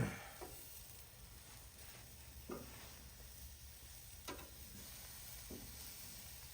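Deer backstrap sizzling in melted butter on the grill, a steady faint sizzle with a few short clicks.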